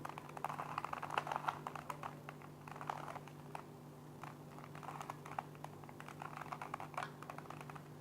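A 3x3 Rubik's cube being turned by hand: its plastic layers click and clack in quick irregular runs of short clicks as a sequence of face turns (a second-layer edge algorithm) is carried out.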